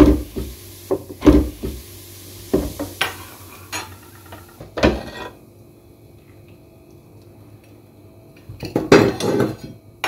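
Metal stove burner grates and a metal spoon clanking against a stainless steel pot in a sink: several separate knocks in the first five seconds, a quiet stretch, then a quick cluster of clinks near the end.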